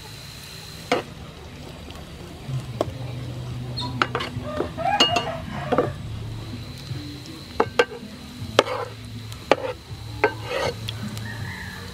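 Metal spatula scraping and clinking against a frying pan as sliced lemongrass fries in soybean oil, sizzling. Sharp clinks come irregularly over the steady frying.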